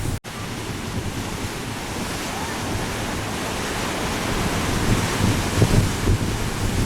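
Rough Black Sea surf: waves breaking and rushing over the shore, with wind buffeting the microphone, the gusts strongest in the last two seconds. The sound cuts out for an instant just after the start.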